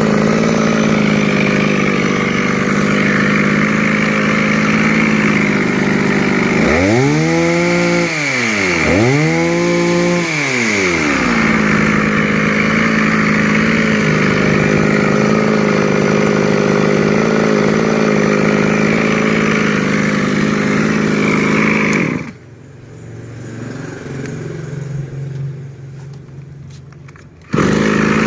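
Small petrol engine of a brush cutter running steadily at a high, even speed, with two brief revs where the pitch rises and falls. About 22 s in, the engine sound drops away suddenly to a much quieter low hum for about five seconds, then comes back at full level.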